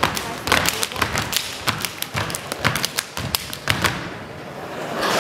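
Step team stepping: rapid, sharp foot stomps on a wooden stage mixed with hand claps and body slaps, in an irregular rhythm. The beats stop about four seconds in and audience noise swells near the end.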